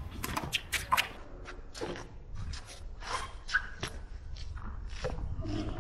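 Racquetball rally on an outdoor concrete court: the ball pops sharply off racquets and the wall again and again, the loudest two hits close together about a second in, with sneakers scuffing on the concrete between them.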